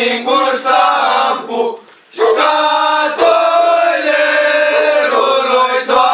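A group of young men singing an old Romanian antiphonal Christmas carol (colind) together in unison. Their voices stop briefly about two seconds in, then come back on long held notes.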